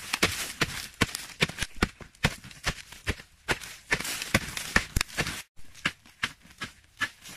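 A wooden digging stick striking hard, dry earth over and over, about three blows a second, with loose soil scraping and scattering between them. After a brief break, separate sharper strikes continue.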